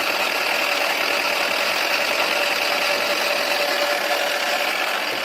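Toy washing machine's small electric motor running with a cricket ball in its drum, a steady whir with a faint high whine.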